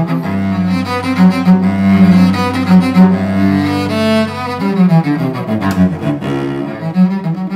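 Solo cello, a Giorgio Grisales instrument on the Lorenzo Ventapane model, bowed. It holds a low note under a moving line of higher notes for about the first four and a half seconds, then goes on with shorter single notes.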